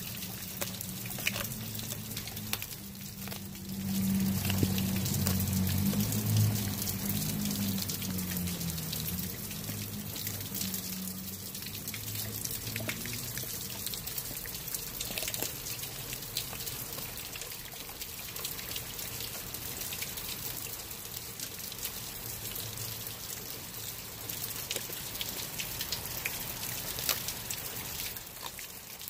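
Steady rain pattering, with a Blue Bay Shepherd chewing and crunching a whole raw fish close by. A few seconds in, a low rumble of distant thunder builds and rolls on for about ten seconds before fading.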